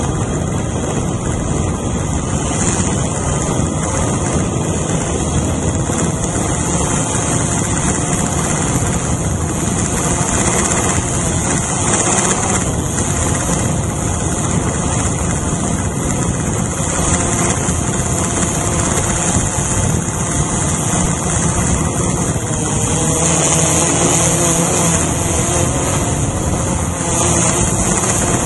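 Quadcopter drone's electric motors and propellers running steadily in flight, heard up close from the camera mounted on the drone: a loud, even whir with a bright hiss on top.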